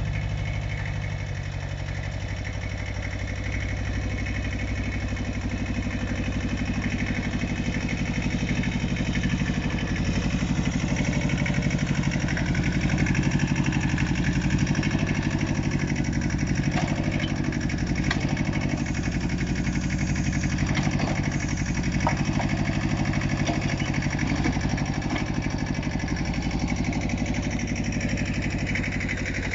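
Iseki TS1610 mini tractor's diesel engine running steadily as its front loader carries and places a stone block. It gets a little louder through the middle, with a few light knocks about halfway through.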